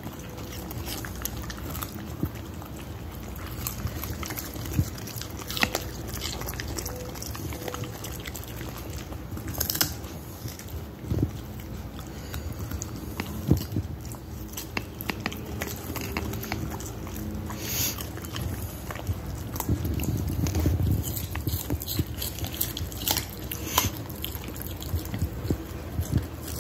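A dog biting and chewing raw carrot, with irregular crisp crunches and snaps as it breaks the pieces up.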